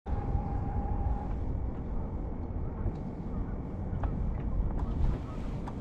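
Low rumbling wind buffeting the microphone on an open fishing boat, with a few faint knocks in the second half.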